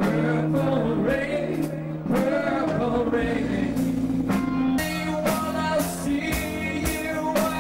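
Live band music: a singer over sustained keyboard chords, bass guitar and a steady drum beat.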